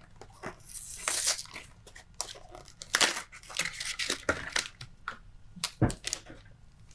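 Foil Pokémon booster pack wrapper being torn and crinkled by hand: a run of quick crackling rustles with denser bursts about one and three seconds in. A short dull thump comes near the end.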